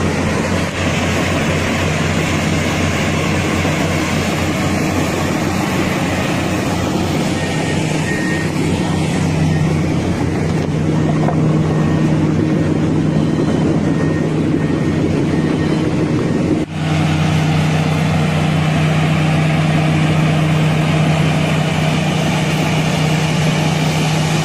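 Heavy earthmoving machine's diesel engine running steadily with a deep, even hum, broken off for an instant about two-thirds of the way through.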